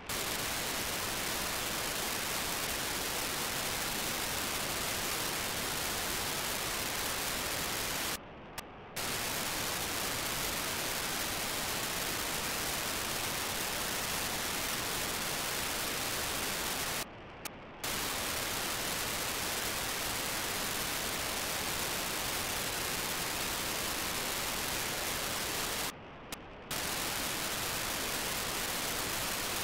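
FM-demodulated receiver hiss from an RTL-SDR tuned to BlueWalker-3's 437.5 MHz beacon. Three times, about every nine seconds, the hiss drops out for under a second as a short 2400 baud FSK telemetry packet from the satellite comes through, heard as a brief, quieter, muffled burst.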